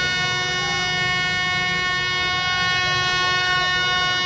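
An approaching diesel locomotive's air horn held in one long, steady blast at a single unchanging pitch, with a low rumble underneath.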